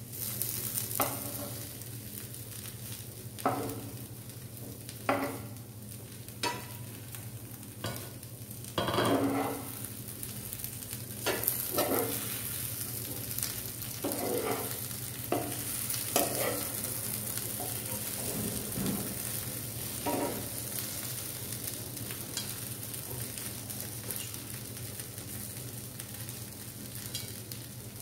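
Boiled taro root pieces (arbi) sizzling in oil in a nonstick pan, with a steady frying hiss. A metal spoon scrapes and turns the pieces every second or two, the strokes thinning out in the last third so that only the sizzle is left.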